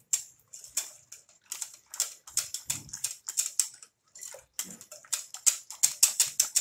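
Wire whisk beating a thin batter of gram flour, yogurt and water in a glass bowl: quick, rhythmic scraping and sloshing strokes, with a couple of short pauses. The batter is being whisked thin and free of lumps for kadhi.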